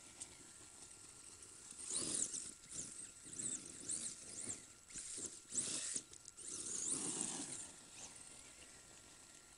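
Brushless electric motor of a radio-controlled off-road car whining in short bursts, its high pitch rising and falling as the throttle is pulsed, with a lower rumble under each burst. It starts about two seconds in and dies away near the end.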